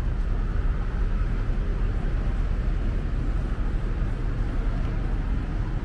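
Outdoor crowd ambience: a steady low rumble with faint voices of a crowd murmuring through it.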